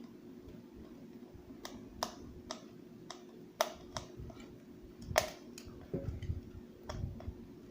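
Irregular sharp clicks and ticks of a Phillips screwdriver turning a screw into a plastic gearbox housing, with the loudest click a little past five seconds in.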